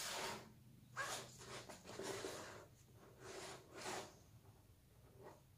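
Faint handling noise of a perfume bottle and its packaging being handled: about six short rustling, scraping sounds, each under a second.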